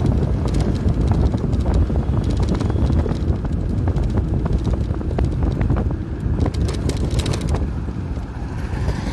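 Wind rushing over the microphone and road rumble from a Hero electric scooter riding at about 40 km/h as it slows from its 48 km/h top speed, with scattered clusters of clicks and rattles.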